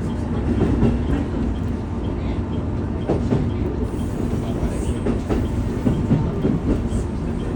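KiHa E130 diesel railcar running: a steady rumble of engine and wheels on the rails, with a few knocks.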